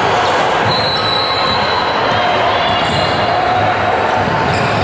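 Steady din of a crowd of spectators at a game, many voices at once with no single speaker standing out.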